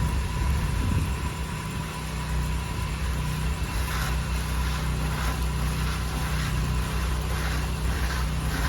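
Pressure washer running steadily: a constant engine hum under the hiss of water spraying from the wand's narrow shooter tip.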